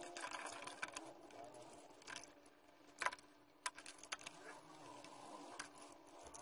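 Brush scrubbing a diecast model car's body and chassis in a tub of water, working loosened paint off, with rubbing swishes and a number of sharp clicks as the small parts knock about, over a steady low hum.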